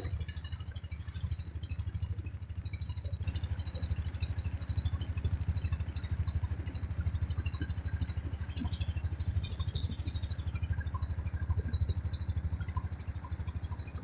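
Engine boat's motor running steadily with a fast, even chugging beat, heard from on board.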